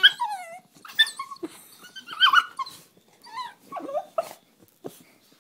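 Dog giving a string of short whimpers and yips, with a few light knocks among them.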